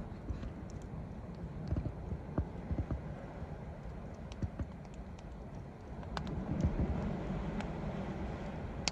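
Log fire crackling, with irregular sharp pops and ticks over a low rumble that swells about six seconds in.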